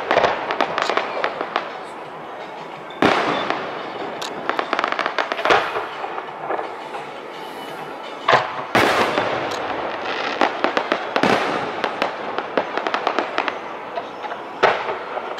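Aerial fireworks shells bursting in a display: a handful of sharp bangs a few seconds apart, two of them close together past the middle. Dense crackling runs between the bangs.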